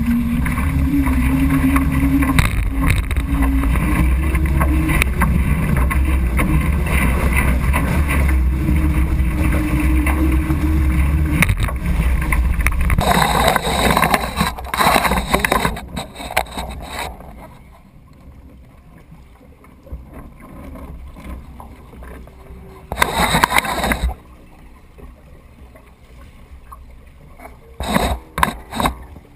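Water rushing and splashing past the bow of a Weta trimaran under sail, heard from a camera just above the waterline, with wind buffeting the microphone as a heavy low rumble. About halfway through it eases to a quieter wash of water, broken by short bursts of splashing about two thirds in and near the end.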